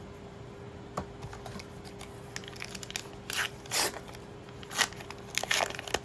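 A foil trading-card booster pack being torn open and crinkled: a small click about a second in, then several short rips and rustles over the last three seconds.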